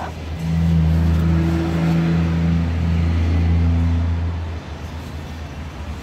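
A motor engine running close by with a low, steady hum, swelling in about half a second in and dropping away after about four and a half seconds.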